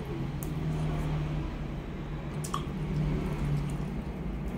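Close-miked chewing of boiled chicken: soft, wet mouth sounds with a few faint clicks, over a steady low hum.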